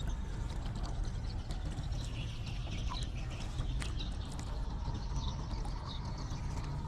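Outdoor rice-field ambience: a steady low rumble with scattered small clicks and a few faint, short high chirps.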